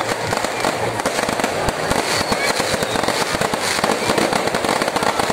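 Aerial fireworks display: a dense, continuous run of bangs and crackles from shells bursting overhead.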